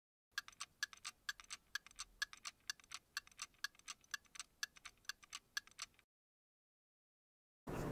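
Clock ticking sound effect, an even tick-tock of about four light ticks a second, which stops about six seconds in. Just before the end a steady hiss begins.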